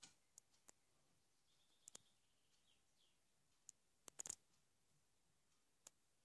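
Near silence: room tone with a few faint, brief clicks scattered through it, several close together about four seconds in.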